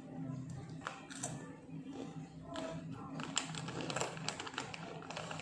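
Plastic snack packet crinkling and rustling as it is handled, in short irregular crackles.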